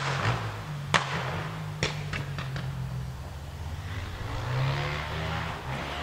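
A narrow-gauge steam train approaching along the line: a steady low rumble, with a rushing sound that swells about four to five seconds in. Several sharp clicks come in the first three seconds.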